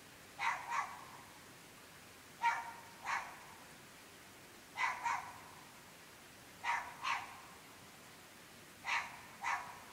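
Dog barks coming in pairs, one pair about every two seconds, on and on without a break.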